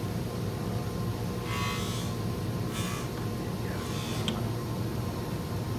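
Steady hum of a small electric motor running, with two brief handling noises about one and a half and three seconds in.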